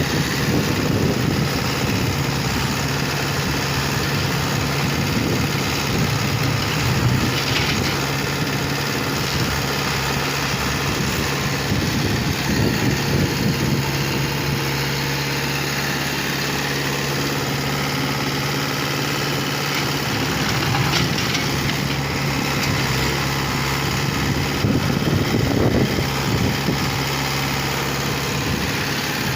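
Construction machine's diesel engine running steadily, with a couple of brief louder surges partway through and near the end.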